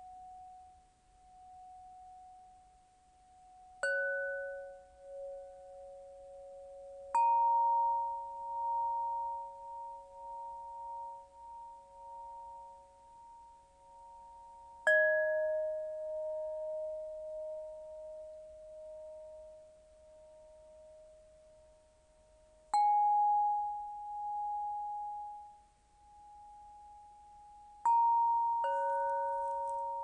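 Crystal pentonia, its clear tuned rods struck one note at a time every few seconds, six strikes in all, the last two close together near the end. Each note is a near-pure bell-like tone that rings on for many seconds with a slow wavering, so the notes overlap into soft chords.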